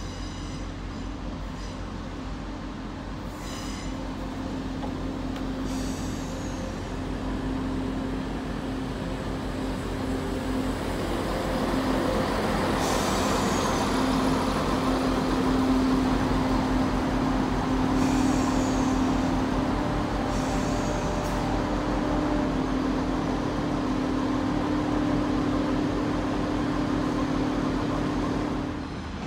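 Train at a station platform, a steady low engine or motor hum that grows louder over the first dozen seconds and then holds, with a few brief high squeals. It cuts off abruptly near the end.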